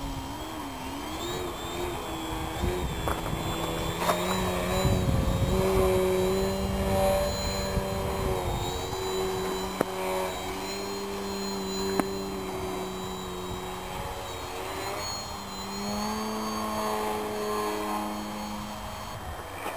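Electric motor and propeller of a 40-inch 3DHS Edge 540 RC aerobatic plane whining as it flies, the pitch sliding up and down with throttle changes and holding steady through a nose-up hover. Two sharp clicks come near the middle.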